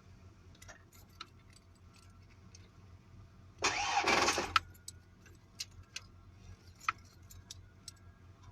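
A car engine on a jump-started battery being cranked over in one burst of about a second, about three and a half seconds in. A low steady hum and scattered light clicks and rattles sound throughout.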